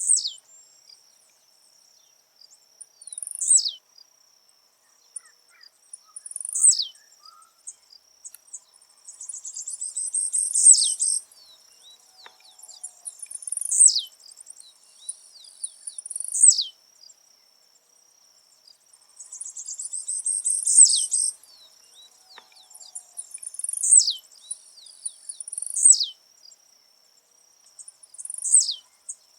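Blue-black grassquit (tiziu) singing its short buzzy song, a phrase every two to three seconds that ends in a quick downward sweep; twice the phrase is drawn out into a longer buzzy rattle. A steady high insect trill runs underneath.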